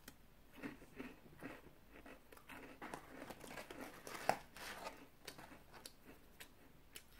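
Close-miked eating of a crunchy cookie: a run of small, irregular crunches as it is chewed, with one louder crack about four seconds in.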